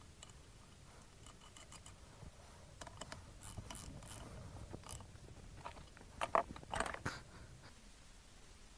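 Ratchet wrench clicking in short runs as steel hydraulic fittings are tightened into a flow divider block held in a bench vise, with a cluster of louder metallic clicks and clinks about six to seven seconds in.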